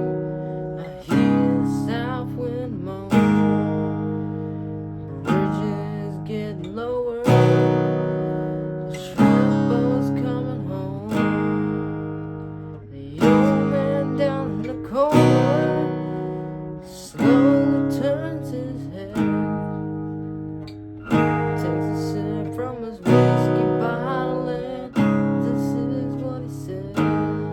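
Acoustic guitar playing slow chords, one struck about every two seconds and left to ring out and fade before the next.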